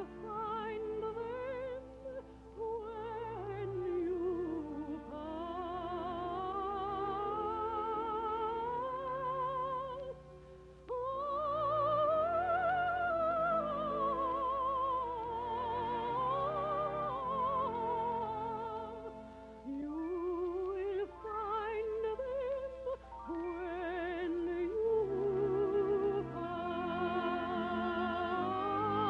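Operatic-style singing with a wide vibrato over instrumental accompaniment. The voice holds long notes in phrases broken by short pauses, climbing to its highest held notes in the middle.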